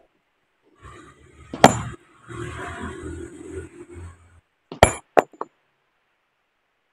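Sledgehammer blows on a large boulder being split by hand, each hit a sharp knock with a brief metallic ring: one about a second and a half in, another near five seconds followed by two quicker, lighter knocks. A rougher rustling noise fills the gap between the blows.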